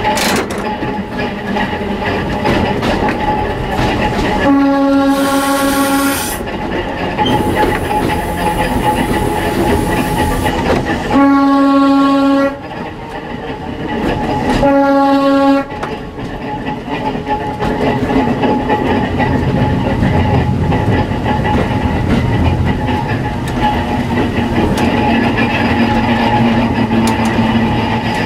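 Narrow-gauge electric railcar running along the rails with a steady rumble of wheels and motor. Its horn sounds three times, about 5, 11 and 15 seconds in, each a steady blast of a second or so, as a warning for the level crossing ahead.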